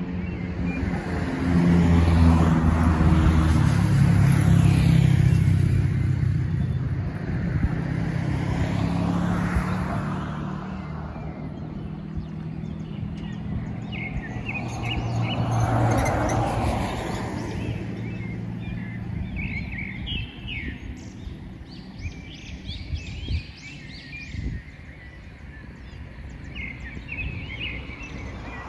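Vehicles passing on a road, each swelling and fading, with a low engine hum loudest in the first ten seconds. Birds chirp in short bursts through the second half.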